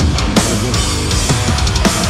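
Heavy metal song with a drum kit loud in the mix: rapid drum and cymbal hits over a thick, constant band sound.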